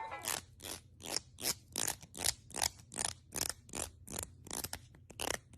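Rhythmic scraping, about three short strokes a second, evenly repeated.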